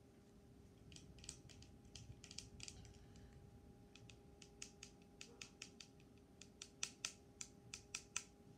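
Light plastic clicks and taps from fingers handling a pair of plastic-framed sunglasses and their tag, scattered at first and then quicker and louder in the second half.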